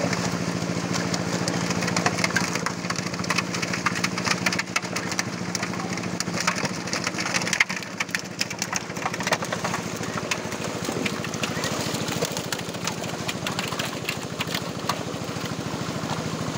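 Fish crowded in a net thrashing and splashing at the water's surface, a dense irregular patter of splashes, over the steady drone of a small engine running.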